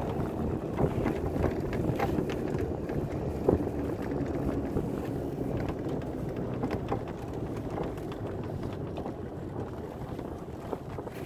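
Golf cart driving over a snow-covered road: a steady low rumble of the running cart and its tyres, with wind buffeting the microphone and a few light knocks.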